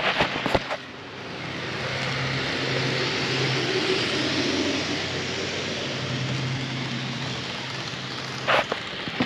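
Model train running past on the layout: a steady motor hum and wheels rolling on the rails, swelling and then fading. A few sharp clicks come at the start and again near the end.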